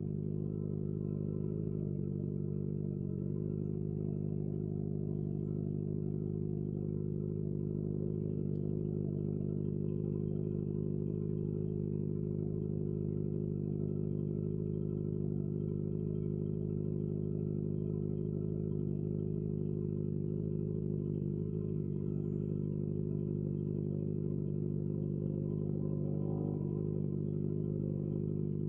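Kawasaki ZX-25R's 249 cc inline-four engine running steadily at constant revs, with no change in pitch.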